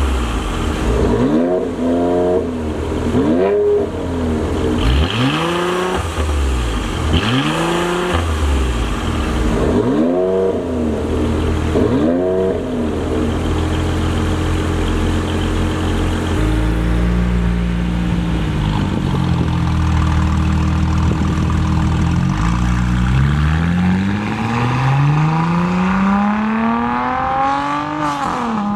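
Mercedes-AMG C43's twin-turbo V6 through a performance exhaust, revved in about six quick blips at a standstill, each rising and falling, then settling to a steadier run. Later it accelerates hard, the engine note climbing in long rising sweeps with a drop at a gear change near the end.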